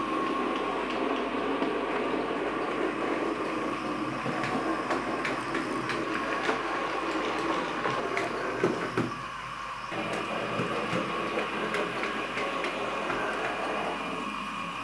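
OO gauge model train running on its track: a steady whirr of the small electric motor and wheels, with scattered clicks from the wheels on the rails.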